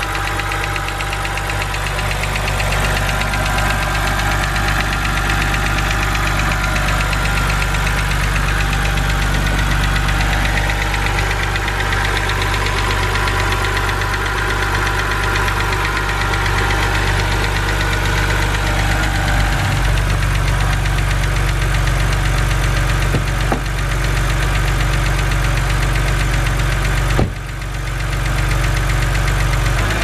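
BMW N52 straight-six engine idling steadily, with a fast, light ticking over the hum: the N52 hydraulic lifter tick. The sound dips briefly near the end.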